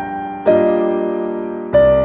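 Background music: slow, soft piano chords, a new chord struck about half a second in and another near the end, each left to ring and fade.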